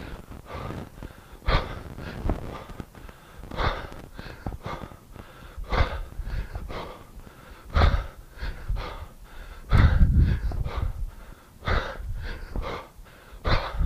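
A man breathing hard under exertion during a set of kettlebell push presses: a sharp, forceful exhale about every two seconds, one with each rep, with quieter breaths between.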